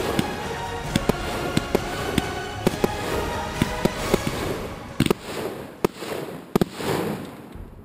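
Fireworks going off: a quick string of sharp bangs and cracks, several a second, thinning out about five seconds in to a handful of louder single reports.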